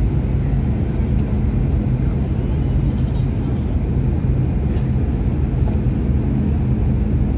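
Airliner cabin noise: a steady low drone from the jet's engines, with a constant hum and a couple of faint clicks.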